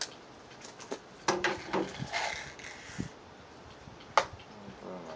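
Sharp clicks and snaps from a Daisy Buck BB gun being handled and fired, the loudest single snap about four seconds in.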